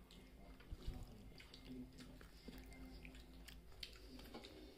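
Faint chewing of a fried snack, with a few soft clicks and small handling noises.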